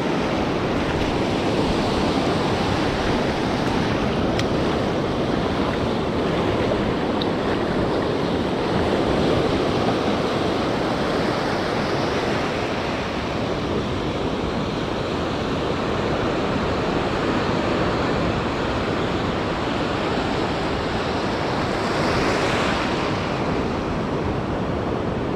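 Ocean surf washing in and out around the feet, a steady rush of breaking waves and foam, with one wave swelling louder near the end.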